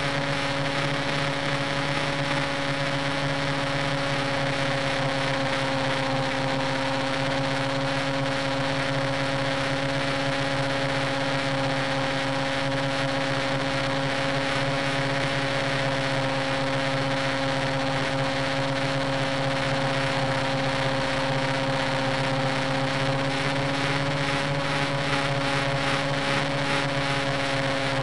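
Align T-Rex 600 nitro RC helicopter's glow-fuel engine and rotor running at a steady speed, a constant drone and whine heard from a camera mounted on the helicopter's own frame.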